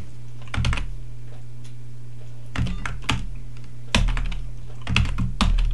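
Computer keyboard keys clicking in four short bursts of typing, over a steady low hum.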